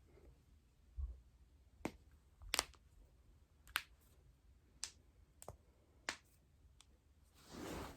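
Joints cracking during a chiropractic-style manipulation: a series of about eight sharp pops, spaced roughly half a second to a second apart, then a brief swell of soft noise near the end.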